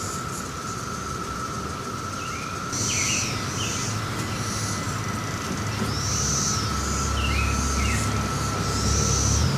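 Brood X periodical cicadas chorusing as one steady, unbroken drone. From about three seconds in, a bird calls over it every second or so in short arched notes. A low vehicle rumble grows louder near the end.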